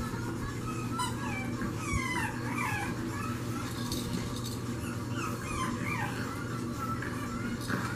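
French Bulldog puppies whining and squealing with high, wavering cries while they play-bite, in two bouts, over a steady low hum.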